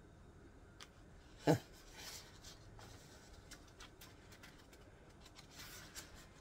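Quiet, intermittent rustling of a sheet of paper being handled, with one short knock about one and a half seconds in.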